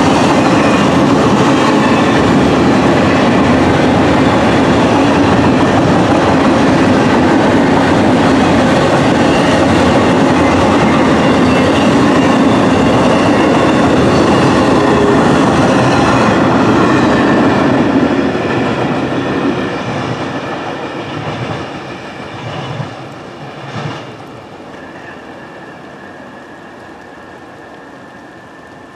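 Freight train of double-stack container well cars rolling past on steel wheels, a loud steady rumble that fades away after about eighteen seconds as the end of the train passes, with a couple of clanks as it recedes.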